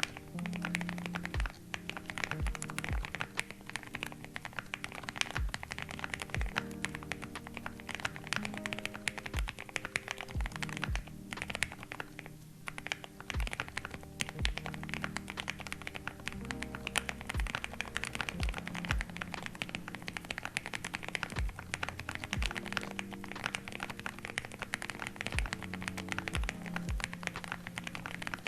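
Typing on a mechanical keyboard fitted with Gateron Ink Black V2 linear switches: a fast, continuous run of key clacks, over background music with a low bass line and a regular beat.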